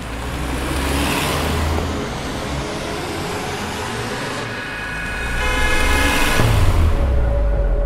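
A car coming close with a swell of engine and road noise over a low rumble. Its horn sounds for about a second and a half near the end.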